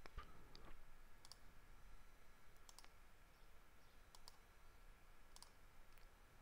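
Faint computer mouse clicks, a handful of short sharp clicks spread out, some in quick pairs, over a low room hiss.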